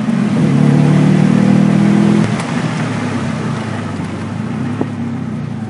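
Car engine under load heard from inside the cabin, a strong even note that drops away about two seconds in, leaving a quieter engine with road noise.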